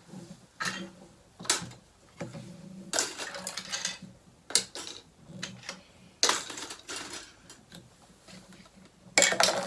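Irregular taps, knocks and clatter of plastic Play-Doh tubs and tools being handled on a tabletop, with a louder clatter near the end.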